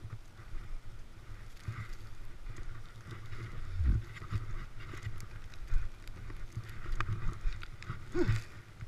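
Skis scraping and carving on snow in short turns, with wind rumbling over the microphone, coming and going in surges. A short falling sound near the end.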